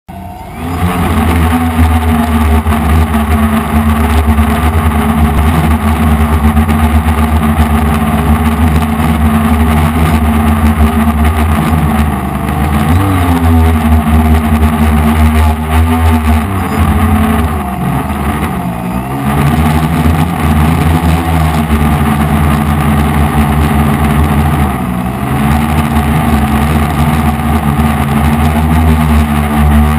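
F450 quadcopter's brushless motors and propellers buzzing loudly and steadily in flight, starting about half a second in. The pitch sags briefly and recovers several times, around halfway through and again later.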